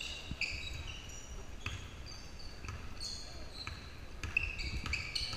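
Basketball game on a hardwood gym floor: the ball thumping as it is dribbled, with short high-pitched sneaker squeaks several times as players move and cut.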